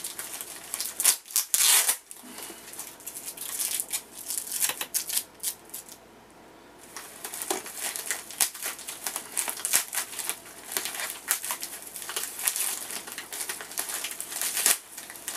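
White mailing envelope crinkling and rustling as hands pull and work at its sealed top to open it, with many sharp crackles and a short lull about six seconds in.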